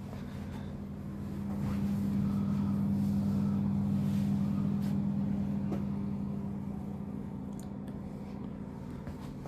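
A vehicle engine running steadily, a low hum that swells for a few seconds in the middle and then eases back.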